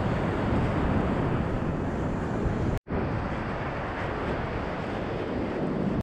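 Wind rushing steadily over an action camera's microphone, with surf breaking on the beach. The sound drops out for an instant a little before halfway.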